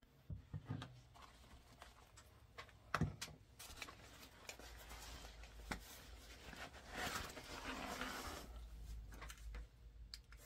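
Camp gear being handled on a hard tabletop: several knocks and clicks as items are set down, and a longer stretch of rustling about seven seconds in as a pot set in its mesh bag comes out of a fabric pouch.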